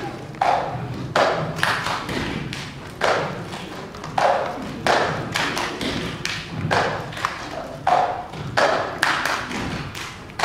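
Cup-game rhythm: hands clapping and a plastic cup knocked and slapped on a wooden stage floor, sharp claps and thuds about twice a second in a repeating pattern.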